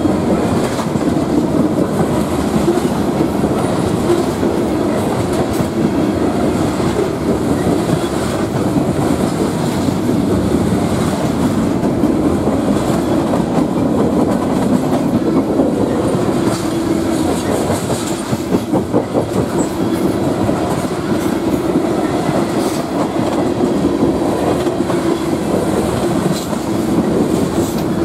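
Freight cars of a long mixed freight train rolling past: steady rumble and clatter of steel wheels on the rails.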